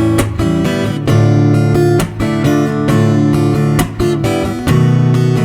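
Acoustic guitar strumming chords in an instrumental break of a song, with a steady rhythm of strokes.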